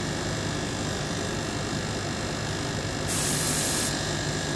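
Steady background hum, broken about three seconds in by one short, sharp-edged hiss of an airbrush spraying paint through a mottling stencil.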